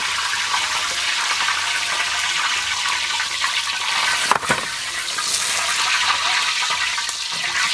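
Liquid ladled and poured over cow hooves in a wok, a steady splashing hiss, with a single sharp clack of the metal ladle about four and a half seconds in.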